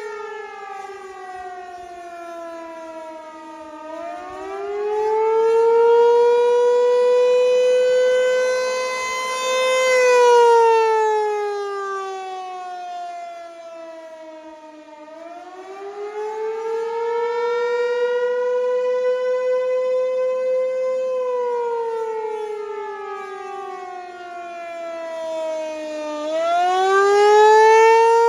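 American Signal T-128 outdoor warning siren sounding loudly: its single tone sinks and climbs back up three times, about every eleven seconds, and grows louder and fainter as the rotating head sweeps round.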